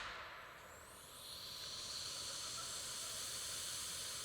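The dying tail of a car airbag's deployment bang fades out over the first second. A steady, even hiss then rises and holds.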